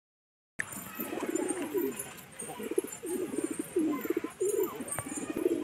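A flock of domestic pigeons cooing, many low, throbbing coos overlapping one another, starting about half a second in.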